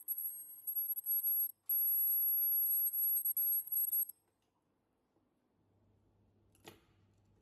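Ultrasonic sewing machine giving a steady high-pitched whine as it seals and cuts fabric edges, dropping out briefly about a second and a half in and stopping about four seconds in. A single short click follows near the end.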